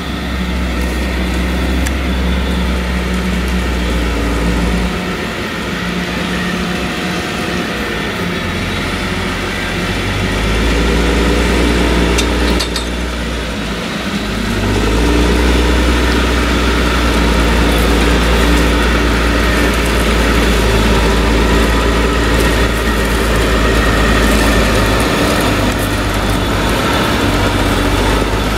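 Claas Jaguar 970 forage harvester's MAN V8 engine running steadily, with a heavy low drone; it eases off briefly about halfway through and then picks up again.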